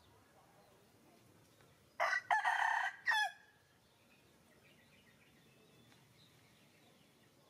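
A rooster crowing once, about two seconds in, a loud call of a few joined notes lasting just over a second and falling away at the end.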